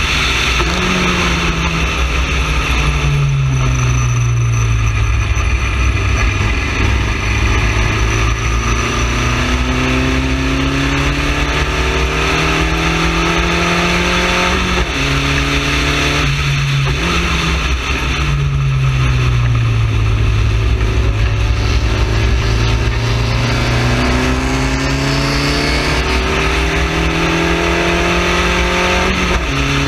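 Onboard sound of a Spec Racer Ford's four-cylinder engine at full throttle, pulling up through the gears. The engine note climbs slowly and drops sharply at each upshift: a couple near the start, a few around the middle, and one at the very end. Steady wind and road noise run underneath.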